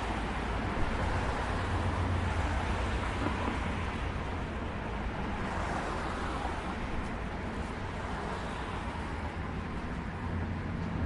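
City street traffic noise: a steady wash of passing vehicles with a deep low rumble that swells and eases.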